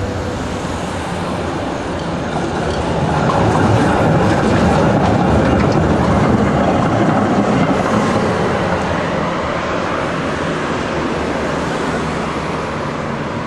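A street tram passing close by, its wheels running on the rails. The noise swells as it draws level and fades as it moves away.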